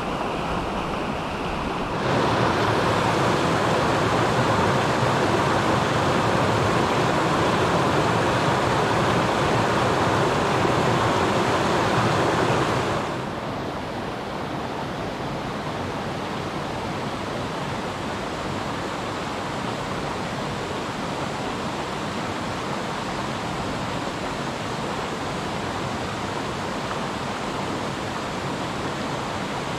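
Creek water rushing steadily over rocks. It is louder from about two seconds in, then drops sharply a little before halfway to a softer, even rush of a small cascade spilling into a pool.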